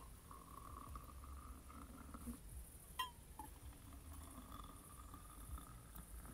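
Tea poured from a kettle into a steel camping mug, a faint trickle whose pitch rises slightly as the mug fills. A brief clink about three seconds in, then a second mug being filled the same way.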